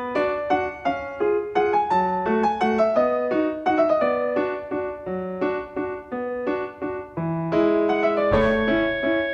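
Background music: a light classical piano piece, single notes struck at a brisk, even pace.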